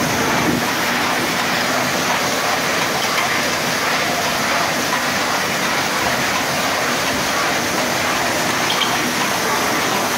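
1981 Bobst SP 102 E die-cutting machine running, heard as a loud, steady rushing noise without distinct strokes.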